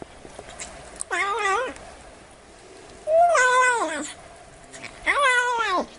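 A cat meowing three times, each meow drawn out for just under a second and falling in pitch at the end, with short pauses between.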